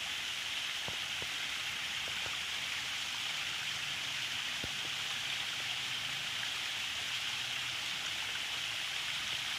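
Water running and splashing steadily down a small rock cascade, with a few faint ticks.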